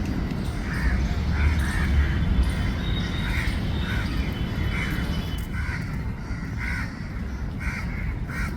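An animal calling repeatedly, about a dozen short calls at roughly one or two a second, over a steady low rumble.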